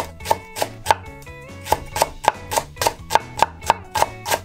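Chef's knife chopping a green onion on a bamboo cutting board, a steady run of crisp strokes about three to four a second with a brief pause about a second in, over background music.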